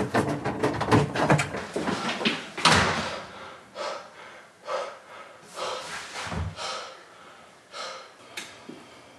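A front door being worked: quick clicking and rattling at the handle, then the door shutting with a heavy thud a little under three seconds in. Softer, scattered knocks and rustles follow.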